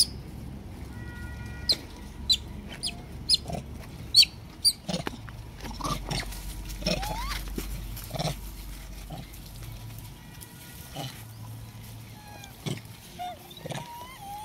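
Rhesus macaques making short grunts and squeaks around food. A run of sharp, high chirps comes about every half second through the first five seconds.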